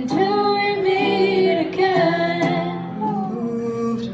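Young women singing a melody into microphones, accompanied by a strummed ukulele.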